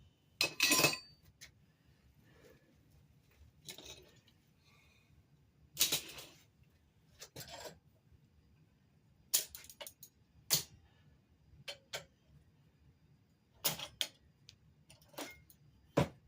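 Locking pliers (Vise-Grips) and clamps snapping open and clanking as they are popped loose with a homemade release tool and handled. Sharp metallic clicks and clanks come at irregular intervals, one or two every second or so, with short quiet gaps between them.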